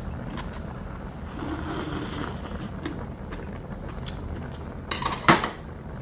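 A man eating and savouring a mouthful: a breathy, appreciative hum about a second and a half in, then a short, sharp, loud sound about five seconds in, over a low, steady background hum.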